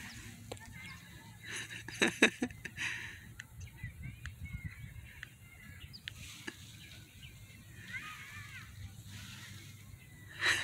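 Birds calling, short chirps and calls coming and going, with a cluster of louder sharp sounds about two seconds in.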